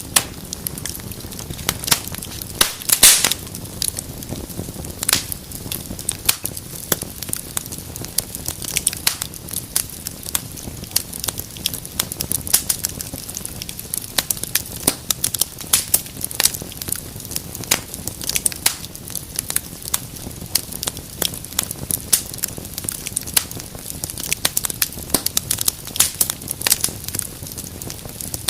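Wood fire burning in a fireplace, crackling steadily with frequent sharp pops over a low hiss; a loud cluster of pops comes about three seconds in.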